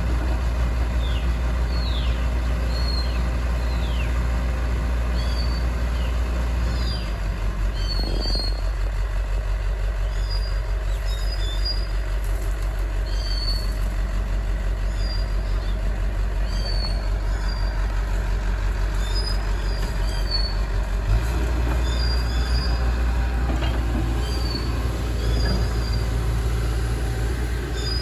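Excavator's diesel engine running with a steady low drone. It eases off about seven seconds in and picks up again around twenty-one seconds. Short high chirps come about once a second throughout.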